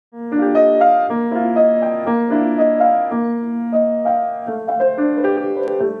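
Solo piano music: a flowing figure of evenly paced notes.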